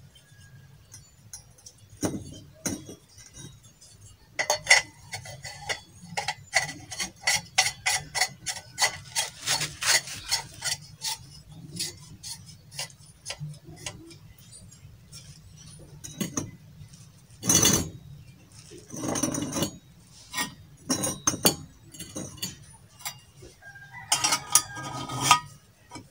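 Steel pipe sections and fittings of a homemade oil stove clicking and clinking as they are screwed and fitted together: a quick run of small ticks for several seconds, then a few louder knocks and scrapes of metal on metal.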